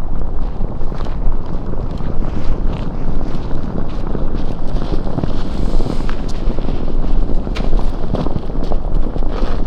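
Strong wind buffeting the microphone, a steady low rumbling rush, with a few faint clicks.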